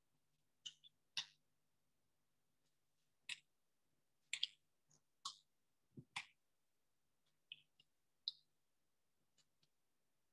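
Quiet room tone broken by about fifteen short, irregular clicks and taps, over a faint low steady hum.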